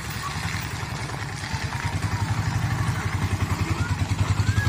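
Autorickshaw's small engine running with an even, rapid pulse, growing louder over the last couple of seconds, with a bird chirping briefly near the end.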